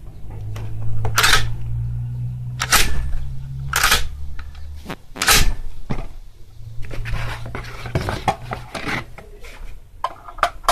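Four sharp clacks, a second or so apart, as the action of a magazine-fed AR-style shotgun is worked by hand, followed by softer rustling handling noise as a long box magazine is picked up.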